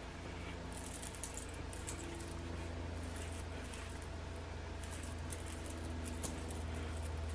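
Fingers fluffing and scrunching through gel-set curly hair, a soft scratchy rustling that comes and goes in clusters.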